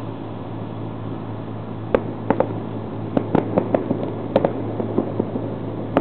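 Fireworks going off: a rapid string of a dozen or so sharp bangs and pops, starting about two seconds in, over a steady low hum.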